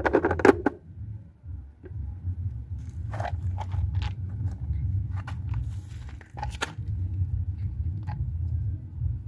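Clicks and knocks of plastic parts being handled and pressed into place while a motorcycle's air filter element and housing are refitted, loudest in a quick cluster in the first second, then scattered single clicks, over a steady low rumble.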